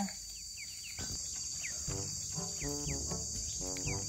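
Steady high-pitched chirring of crickets, with a few short high chirps over it. Soft background music with a stepping melody comes in about halfway through.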